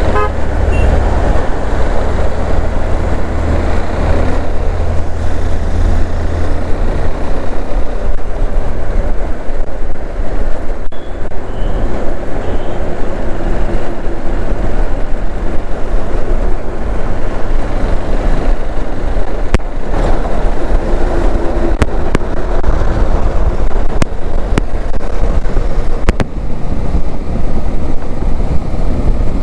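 Wind rumble on a helmet-mounted microphone in a dead cat, over a motorcycle's engine and the surrounding road traffic while riding slowly. A strong low drone eases about seven seconds in.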